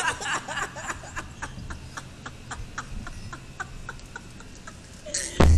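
A steady run of sharp clicks, about four a second, then a loud thump near the end.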